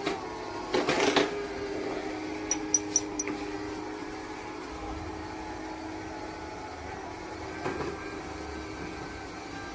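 Robot vacuum cleaner running with a steady motor hum. A brief louder rattle comes about a second in, four quick high ticks a little before three seconds, and a smaller rattle near the end.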